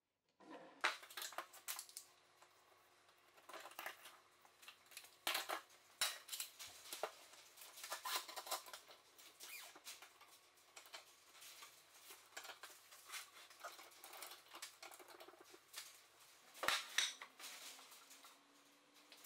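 Workbench handling noises: a metal bar clamp slid along its rail and its red jaws set and tightened against oak boards, giving scattered sharp clicks, knocks and metallic clatters. A louder cluster of knocks comes near the end.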